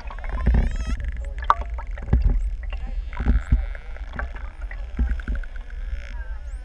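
Pantropical spotted dolphins heard underwater: whistles gliding up and down, short clicks and rapid click trains, over a steady low rumble of moving water.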